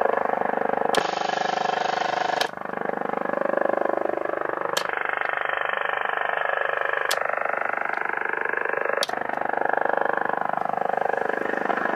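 A strange pulse-type signal about 22 kHz wide, picked up on shortwave and heard through a Kenwood R-1000 receiver. Its sound changes abruptly five times, with a click at each change, as the receiver is switched from one mode to the next.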